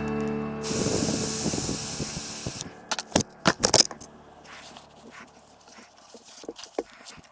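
A spray hissing steadily for about two seconds, then a quick cluster of sharp clicks and knocks, fading to a few faint ticks.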